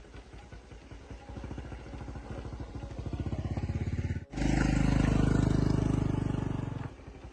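A small engine running with a steady rhythm of firing pulses, growing louder. It breaks off abruptly, then returns louder for about two and a half seconds before dropping away near the end.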